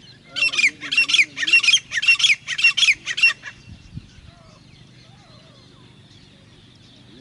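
Grey francolin calling: a run of about six loud, harsh, ringing notes repeated evenly over about three seconds, then stopping.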